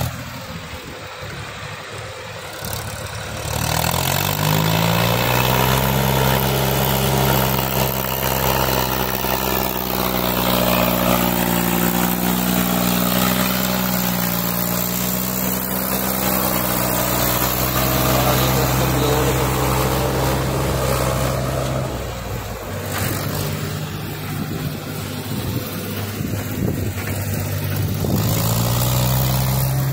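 Farm tractor diesel engine pulling a trolley loaded with soil: it speeds up about three seconds in, runs steadily for a long stretch, eases off around two-thirds of the way through, and speeds up again near the end.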